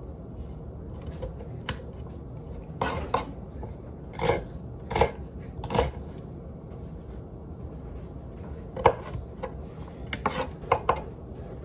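Small kitchen knife chopping celery stalks on a countertop: short knocks and crunches as the blade goes through the celery and hits the counter, coming in irregular bunches with pauses between.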